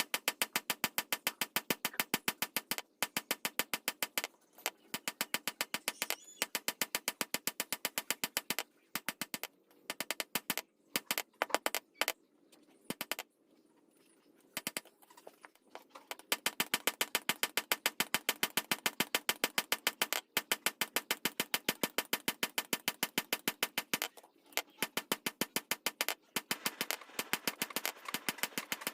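Hammer blows on hot steel at a blacksmith's anvil, struck fast and evenly at several blows a second, with a short break near the middle.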